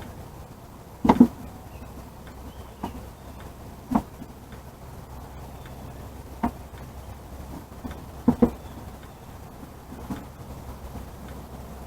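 Items being set down and shuffled on the shelves of a small donation cabinet: scattered knocks and clunks, several of them in quick pairs, over a steady low background.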